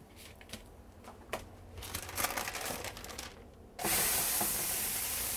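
Light rustling and handling noises, then about four seconds in a raw ground-beef hamburger patty goes into a hot skillet and starts sizzling loudly and steadily.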